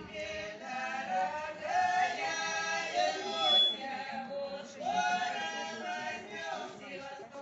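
A song: singing voices, a man's voice leading, holding and bending long notes over musical backing.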